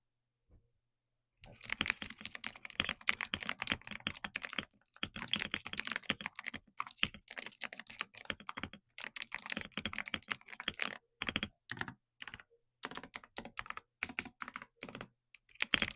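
Typing on an Aula S98 Pro mechanical keyboard fitted with Gateron Oil King linear switches and MOA-profile keycaps, the keys struck with long fingernails. Fast runs of keystrokes come in bursts with short pauses, starting about a second and a half in.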